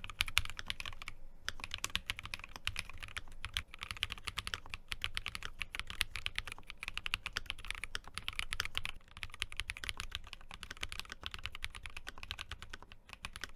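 Fast, continuous typing on an Akko SPR67 spring-mounted mechanical keyboard with stock switches and PBT double-shot keycaps: a dense stream of key clicks, with brief pauses about a second in and around nine seconds in. This is a typing sound test across different mounting-spring weights.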